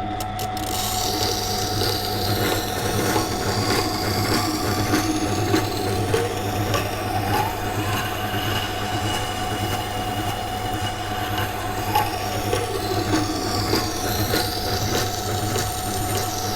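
Water-cooled grinding wheel running with a steady hum while a carbon-steel knife blade is drawn back and forth across the stone, grinding the secondary bevel; the scraping rises and falls in pitch with each pass.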